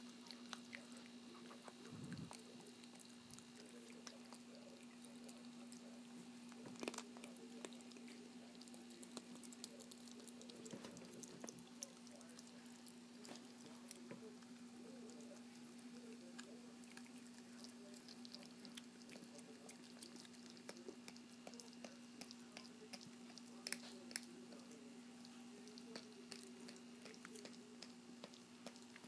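Small long-haired dog chewing a raw chicken neck: faint, scattered crunches and clicks of bone and gristle, a couple of them louder, over a steady low hum.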